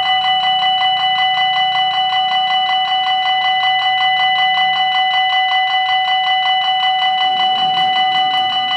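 Electronic level-crossing warning bells ringing continuously in a rapid, even, pulsing ring of several fixed high tones, sounding while the crossing's red lights flash.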